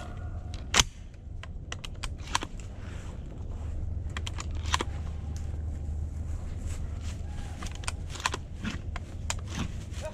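Scattered clicks, knocks and rustles of someone moving through dry grass and brush and handling a gun, over a low steady hum. A sharp knock about a second in is the loudest, and a cluster of clicks comes near the end.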